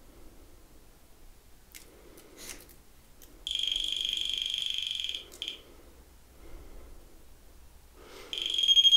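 REM Pod ghost-hunting detector sounding its high electronic alarm tone: a steady tone lasting about two seconds, stopping, then starting again louder and rapidly pulsing near the end. The alarm is set off by something disturbing the field around its antenna, which the investigators take for spirit activity.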